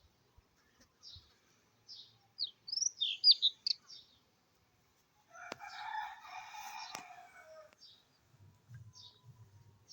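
Small birds chirping repeatedly, louder in a quick cluster a few seconds in. Past the middle a rooster crows once, for about two seconds, the call dropping at its end.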